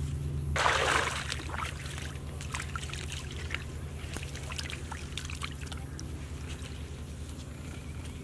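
Shallow muddy floodwater splashing: one loud splash about half a second in, then small splashes and trickling as hands work in the water, over a steady low hum.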